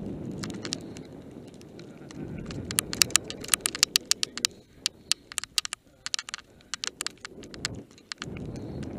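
Mountain bike descending a rocky gravel trail at speed: steady tyre rumble over loose stones, with many sharp rattling clicks from the bike on the rough ground, thickest in the middle. The rumble drops away briefly near the end, then returns.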